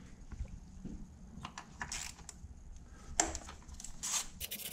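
Scattered light clicks and knocks of ignition coils being handled and set down, with sharper knocks about two, three and four seconds in.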